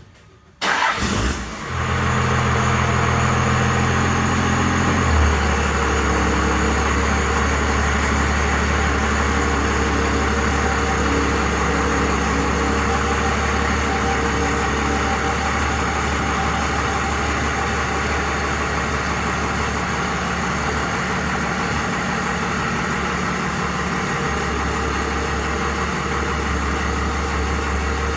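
The motor of the lift used to hoist the air conditioner off the truck starts suddenly about a second in and then runs steadily. Its pitch drops and settles lower about five seconds in.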